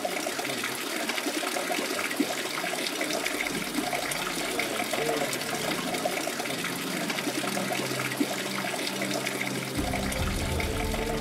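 Water running steadily from a stone fountain spout and splashing below. Soft music fades in underneath, plainer near the end.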